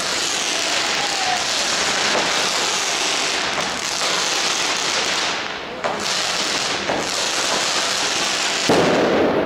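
Fireworks hissing continuously in the street, a loud spray of sparks with short dips about six and seven seconds in. Near the end a ground firework spraying sparks on the road adds a louder, deeper rush of hissing.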